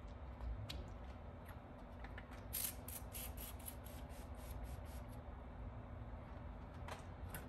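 Hand trigger spray bottle spritzing a beef chuck roast in a smoker: a quick run of about a dozen squirts, lasting under two seconds, a third of the way in. A few single clicks come before and after it, over a faint steady hum.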